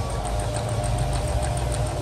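Juki electronic household sewing machine running at a steady speed while sewing a picot stitch: a steady motor whine with quick, even needle ticks, about six a second.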